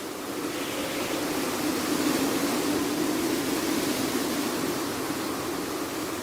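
Blizzard wind howling: a steady rush of wind noise with a low moaning tone that swells about two seconds in, then eases slightly.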